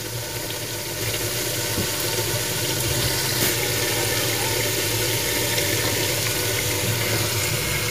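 Ground spices and oil sizzling steadily in a cooking pot, an even hiss with no stirring strokes.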